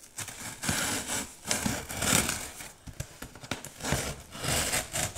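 Scissors cutting through the packing tape along the top seam of a cardboard box, in uneven scraping and tearing strokes.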